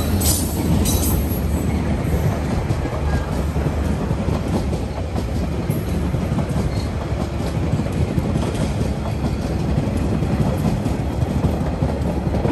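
Locomotive-hauled passenger carriages rolling past on the track, their wheels rumbling and clacking over the rail joints. A few sharp, high metallic squeals from the wheels in the first second.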